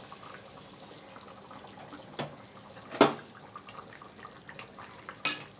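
Fish curry simmering in a clay pot, a soft steady bubbling, with a metal spoon knocking against the pot a few times, loudest about three seconds in.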